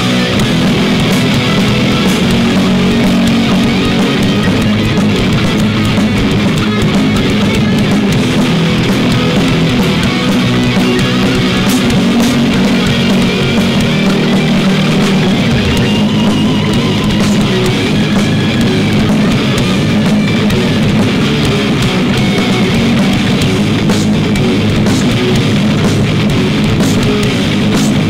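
Rock band playing an instrumental passage: electric guitars over a drum kit, loud and dense throughout, with no singing.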